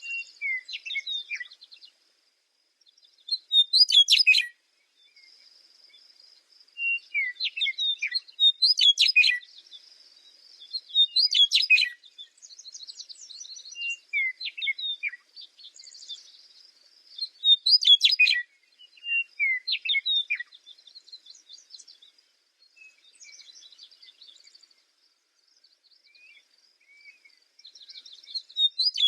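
Parrots chirping and calling, high-pitched, in loud bursts of rapid notes every few seconds over a fainter continuous twittering.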